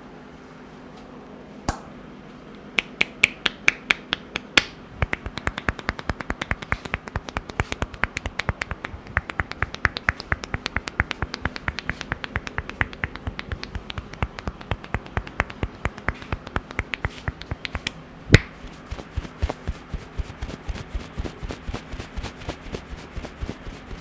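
Hair cracking during a barber's head massage: tufts of hair snapped between the fingers in a rapid run of sharp snaps, several a second. It begins a few seconds in, with one louder crack about three-quarters of the way through.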